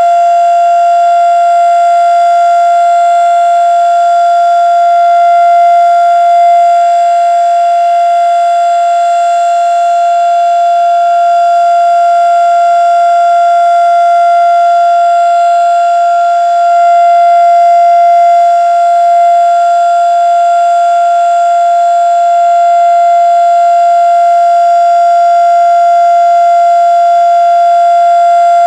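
Federal Signal Model 3 outdoor warning siren sounding the Alert signal: one loud, steady tone held at a constant pitch, with only slight swells in loudness.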